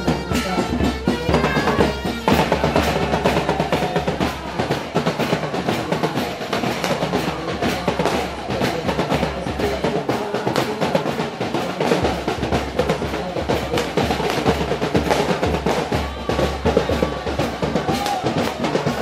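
Drums playing fast, rhythmic percussion music with rolls.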